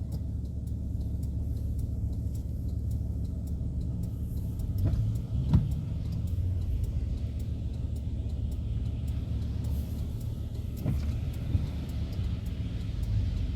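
Inside the cabin of a Volkswagen T4 van on the move: a steady low engine and road rumble, with a short sharp knock about five and a half seconds in and another near eleven seconds.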